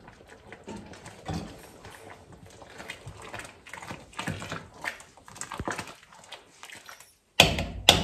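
Quiet stirring in a large steel stockpot of chunky chutney, with faint spoon scrapes and clinks. Near the end, loud sharp knocks start, a few a second.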